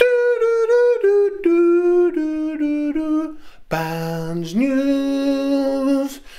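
Unaccompanied singing of a short theme tune. A quick run of short notes steps downward, then after a brief break a lower note slides up and is held for about two seconds.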